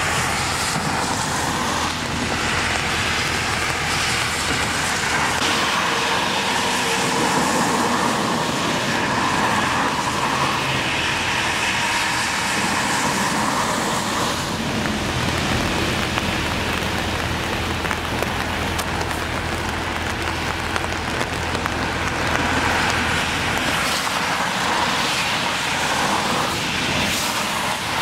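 Freeway traffic on a rain-soaked road: a steady hiss of tyres on wet pavement that swells and eases as cars pass.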